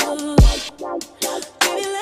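Background electronic music with a deep kick-drum beat, sharp percussion hits and a melodic line.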